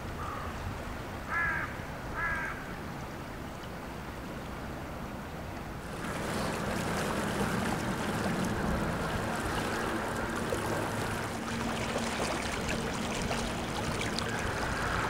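Floodwater of the River Thames rushing past, louder and hissier after a cut about six seconds in, with a steady low hum through the middle part. Two short bird calls a second apart near the start.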